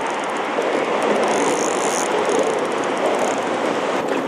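Steady noise of road traffic crossing the bridge overhead.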